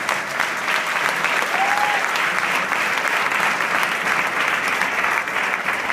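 Church congregation applauding steadily, many hands clapping together.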